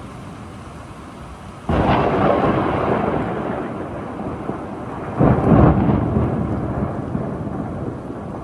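Thunderstorm: steady rain, with a sudden thunderclap about two seconds in and a second, louder peal of thunder about five seconds in, both rumbling away slowly.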